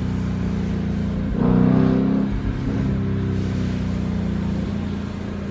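Ford Mustang's engine heard from inside the cabin while driving, a steady drone. About a second and a half in it swells louder and higher in pitch for about a second, then settles back.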